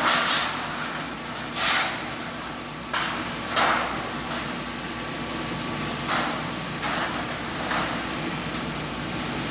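Stainless steel slitting machine running: a steady mechanical hum, with a short hissing swish or clatter every second or two as the steel strip runs through.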